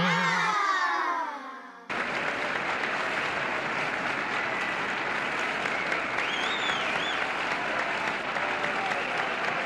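A wobbling, falling cartoon sound effect fades out, and about two seconds in crowd applause starts suddenly and runs steadily, with a few high whistles in it.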